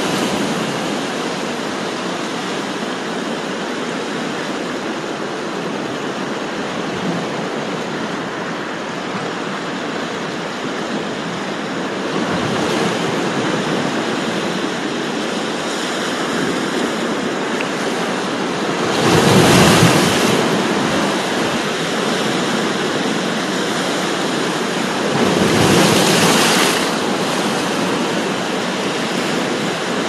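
Sea surf washing in over coastal rocks in a steady rush, with waves breaking louder about two-thirds of the way through and again near the end.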